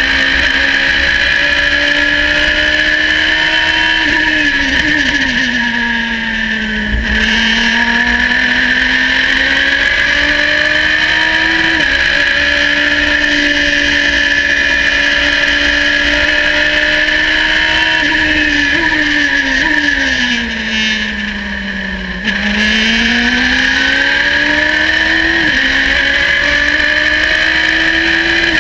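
Radical race car's engine heard from the cockpit, running hard at high revs at racing speed. Twice its pitch sinks as the car lifts and slows for a corner, then climbs again with sudden steps at the gear changes. A steady high whine runs under the engine note.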